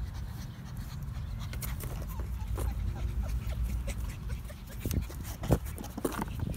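Puppies panting, with a few brief whimpers and sharp clicks between about five and six seconds in, over a steady low rumble.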